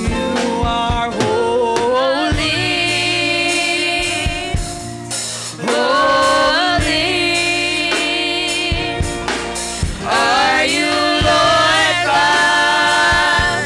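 Gospel worship song performed live: several singers hold long notes in three drawn-out phrases over a band with drum kit and electric guitar.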